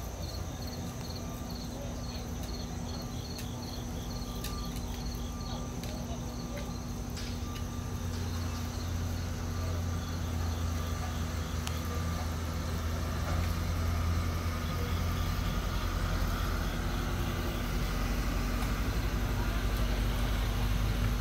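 A steady low engine hum from a work truck idling, slowly growing louder. Insects chirp in an even, repeating pulse over the first several seconds.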